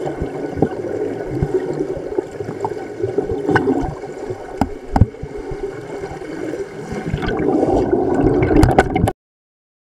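Underwater bubbling and gurgling heard through a camera housing, the sound of divers' exhaled air bubbles, with scattered sharp clicks. It grows louder near the end, then cuts off suddenly.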